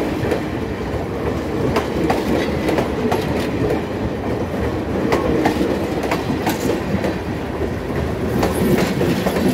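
Railcars of a passing train rolling by, a steady rumble with wheels clicking irregularly over the rail joints, a few clicks a second.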